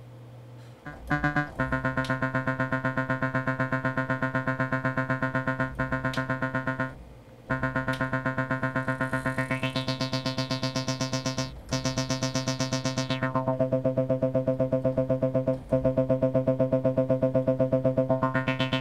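Kurzweil PC3 synthesizer playing a pulse-width-modulated patch: a rapid, even run of repeated notes at one low pitch, driven by the arpeggiator. The run starts about a second in and breaks off briefly three times. Around the middle the tone grows much brighter and then dulls again as the modulation settings are changed.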